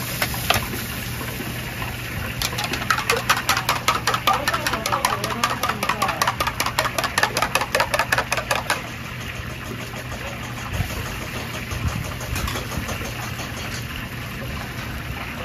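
Rapid, even tapping of a kitchen utensil, about nine strokes a second, starting about two seconds in and stopping shortly before nine seconds, over a steady low hum.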